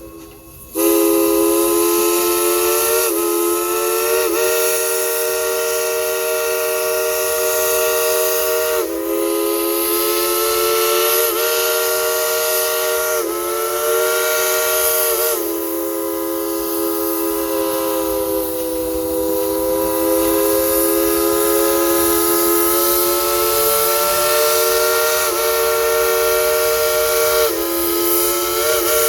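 Steam locomotive #192's Crosby three-chime whistle blown in one long chord. It breaks off briefly near the start, then sounds continuously, swooping down and back up in pitch several times before it cuts off at the end.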